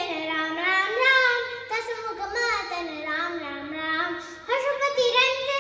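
A young boy singing a Ram bhajan in Carnatic style. He holds long notes that bend and slide in pitch, with a short pause for breath about four and a half seconds in.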